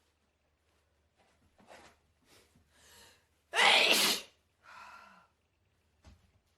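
A man with a heavy cold sneezing: a few short catching breaths, then one loud sneeze about three and a half seconds in, followed by a quieter breath.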